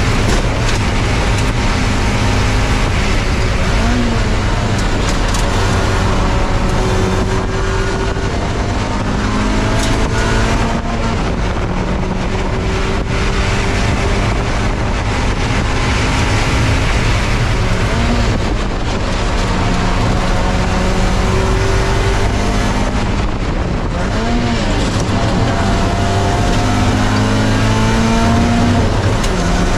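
Spec Miata race car's four-cylinder engine running hard at racing speed, its pitch repeatedly climbing and then dropping back as it accelerates, shifts and slows for corners, over a steady low rumble.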